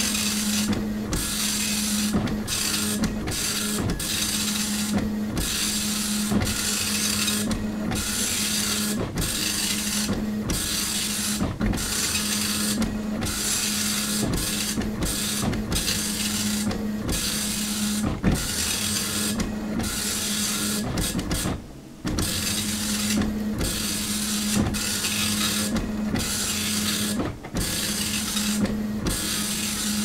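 Dot-matrix printer printing, its print head buzzing across the page in runs of about a second with short breaks between lines, over a steady hum. It stops briefly about two-thirds of the way through, then carries on.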